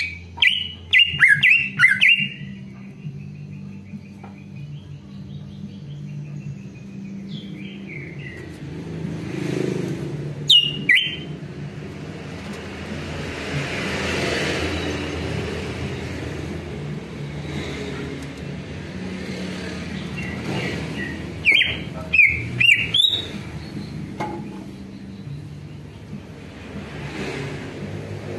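Male greater green leafbird (cucak ijo) giving short, loud bursts of sharp chirps and whistled calls: a rapid cluster at the start, single calls about 8 and 10 seconds in, and another rapid cluster about 21 to 23 seconds in. A steady low hum runs underneath, with a swell of noise near the middle.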